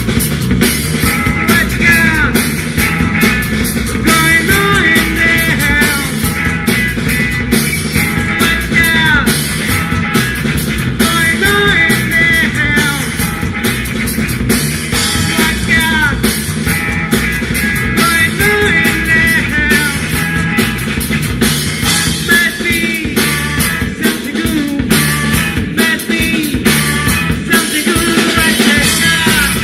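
Rock band playing: drum kit, guitar and bass, loud and continuous, with bending melodic lines over the top.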